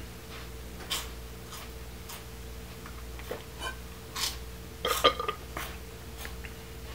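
Scattered short crunches and crinkles of someone eating snack chips from a bag, the loudest a brief cluster about five seconds in, over a faint steady hum.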